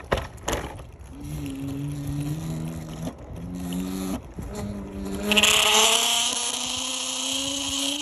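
Bird Flex electric scooter accelerating: its motor whine rises in pitch, first in steps and then in a steady glide. About five seconds in, a loud high-pitched screech joins it and holds, the weird noise that the owner says starts once the scooter reaches about 10 mph and shows that it is not working correctly. A couple of knocks near the start.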